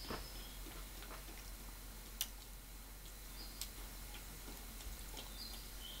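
Quiet ambience with scattered sharp clicks and ticks, the loudest about two seconds in, and a few very short high chirps over a low steady hum.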